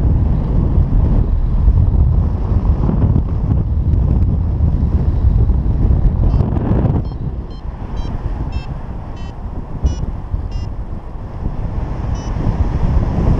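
Wind buffeting the microphone of a camera on a flying paraglider, heavier in the first half. From about six seconds in, a paragliding variometer gives a run of short high beeps, the tone it sounds in rising air.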